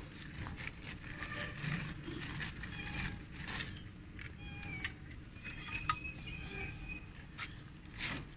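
Light, scattered clicks and creaks from a hanging weighing scale, its steel pan slung on rope, as sardines are handled in the pan and weighed.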